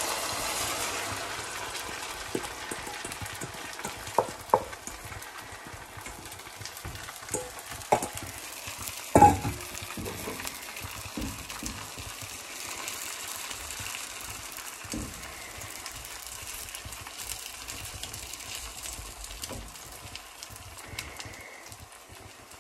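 Beaten egg with moringa leaves sizzling in hot ghee and coconut oil in a non-stick frying pan, the sizzle strongest as the mixture goes in and slowly dying down. A wooden spatula knocks and scrapes on the pan a few times as the omelette is spread, loudest about nine seconds in.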